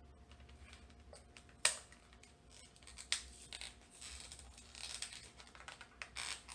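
Toy packaging being opened by hand: a sharp click about a second and a half in, then scattered clicks and rustling of the package.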